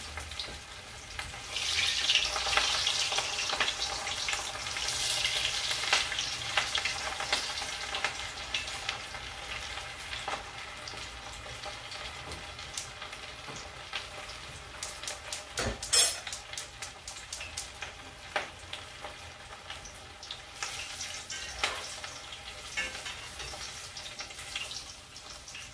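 Kipes (bulgur and ground-beef kibbeh) frying in very hot oil in a small pan, giving a steady sizzle with many small crackles. The sizzle swells about two seconds in, then settles to a lower, even level. A single sharp click sounds about sixteen seconds in.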